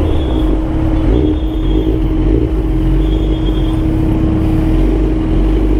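Suzuki GSX-R1000 K2 sportbike's inline-four engine running at a steady pitch under way.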